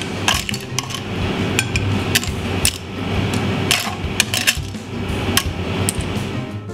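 Metal tongs and clam shells clinking against a steel pan and a serving bowl as spaghetti with clams is plated: irregular sharp clicks, a few each second, over a steady background hum.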